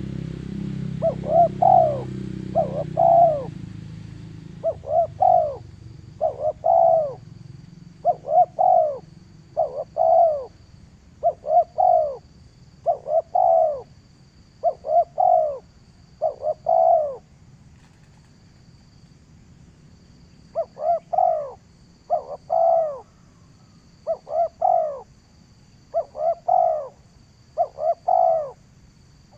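Balam dove cooing over and over, each phrase two or three short arched coos, repeated about every one and a half to two seconds, with a gap of a few seconds near the middle. A low rumble sits under the first few seconds.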